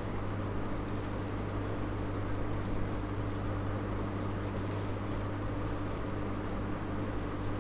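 Steady electrical hum and hiss of background noise, with a few faint clicks.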